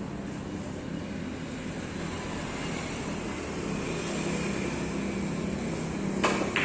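Cue tip striking a carom billiard ball with a sharp click about six seconds in, then a second click just after as the ball hits another ball. A steady background hum runs throughout.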